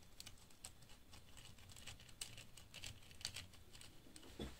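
Faint, scattered light clicks and ticks of a small screwdriver and screws being handled at a 3D printer's print head while a cooling fan is fastened.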